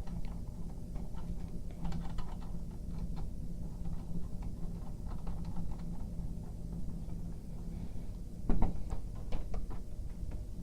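Scattered light clicks and handling noises from speaker wire being fitted into a subwoofer's spring terminals, with one louder knock late on. A steady low hum runs underneath.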